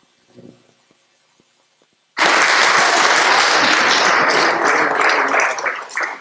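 Audience applauding, breaking out suddenly about two seconds in and easing off near the end, after a couple of seconds of near-quiet with faint knocks.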